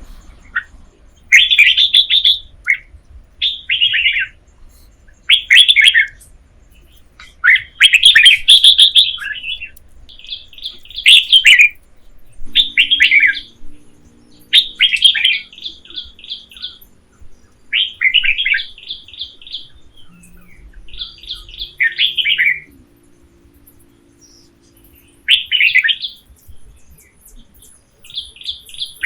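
A songbird calling: short bursts of chirping notes, some as quick trills, repeated every second or two.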